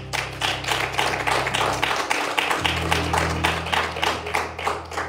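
Quick, steady hand clapping, about five claps a second, over sustained organ chords that move to a new chord about halfway through.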